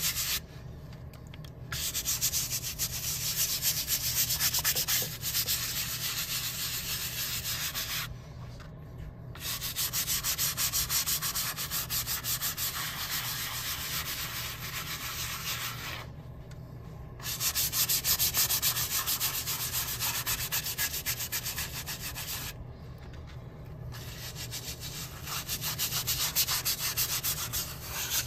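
Hand scrubber working rapidly back and forth over wet, soapy leather: a fast, even scrubbing rub on a jacket panel being cleaned. It stops briefly four times.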